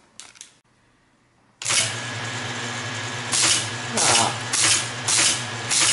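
Teletype ASR 33 switched on about one and a half seconds in: its motor and mechanism run with a steady hum. Clattering bursts follow about twice a second as keys are pressed, the keyboard now tripping the transmit clutch after a linkage adjustment.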